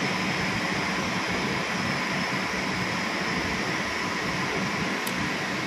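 Steady drone of industrial plant machinery with a constant low hum, unchanging throughout; a small tick sounds near the end.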